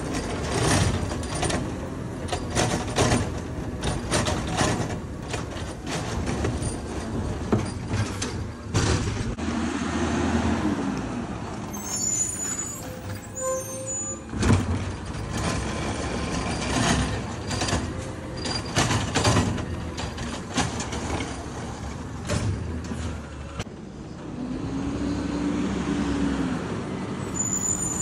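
Natural-gas garbage truck's Rapid Rail automated side arm lifting and emptying a wheeled curbside cart, with many sharp knocks and clatters of the plastic cart against the arm and hopper over the running engine. The engine's pitch rises and falls twice as the arm cycles.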